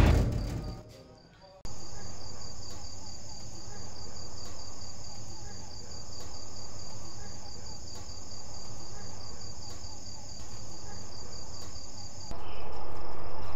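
A loud thud at the very start dies away into a brief hush. Then crickets chirp steadily in a fast, even pulsing trill. Near the end a louder low background noise comes in under the crickets.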